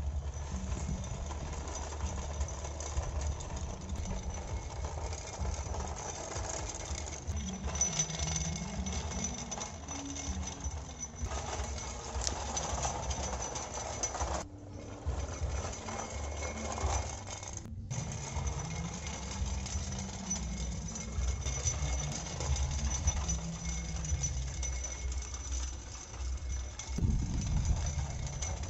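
Electric drive motors and gearboxes of a toy RC dump truck and RC road roller running as the truck tows the roller on a rope across concrete. The sound breaks off briefly twice, about fifteen and eighteen seconds in.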